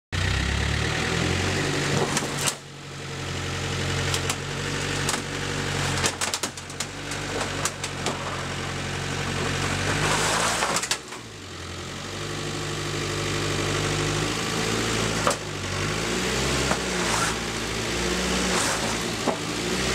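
Land Rover Discovery 1 Tdi's diesel engine running and revving as its front wheel climbs onto a Honda Civic Type R's bonnet, the revs rising and falling and dropping off briefly twice. Sharp cracks and crunches of the bonnet panel giving way come through at intervals.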